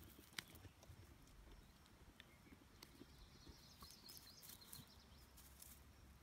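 Near silence, with faint rustles and a few light clicks, one sharper click near the start, and faint high chirping about halfway through.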